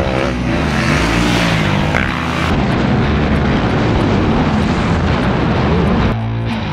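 Dirt bike engines revving hard on a motocross track, heard on board the rider's own bike. Music comes back in near the end.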